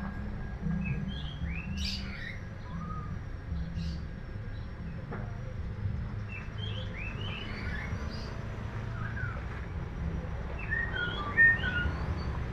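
Black-naped oriole (the golden Sumbawa form) giving short chirping calls in little clusters every few seconds, over a low steady rumble of background noise.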